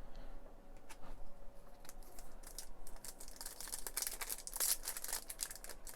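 A foil trading-card pack wrapper crinkling and tearing as it is opened by hand. There are a few light clicks at first, then a dense crackle from about two seconds in.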